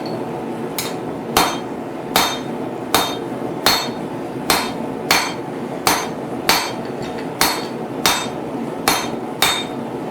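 Blacksmith's hammer striking hot steel bar on an anvil in a steady rhythm, about fourteen blows at roughly one and a half a second, each with a short metallic ring. The blows are cutting a piece of the bar off to length.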